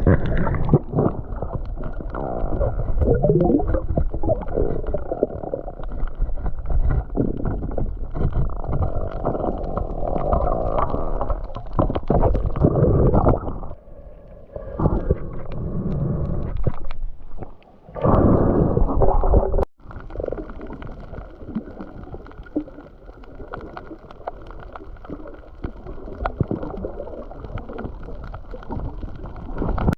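Muffled rumbling and gurgling of water moving around the camera, with little high sound in it. It breaks off sharply about two-thirds of the way through and carries on more quietly after.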